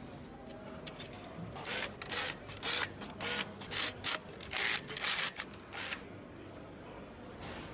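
Hand tools working in an engine block's crankcase: about ten short, irregularly spaced rasping, ratchet-like bursts, starting a couple of seconds in and stopping about two seconds before the end.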